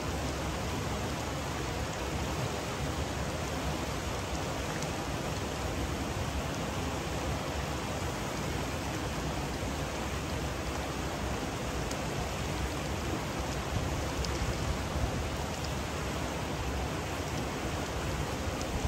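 Steady rushing water noise, even and unbroken throughout.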